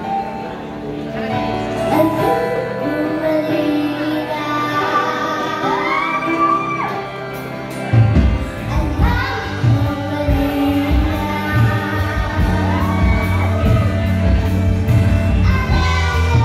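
A young girl singing a pop ballad with a live band. A sustained, soft backing carries her voice at first; about halfway through, the drums and bass come in with a steady beat.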